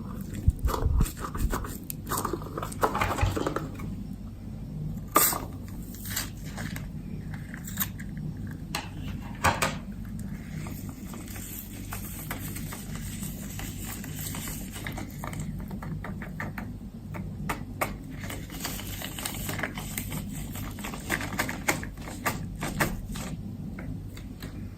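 Hands working clear slime, giving irregular sticky clicks, pops and crackles, with a few sharper pops now and then.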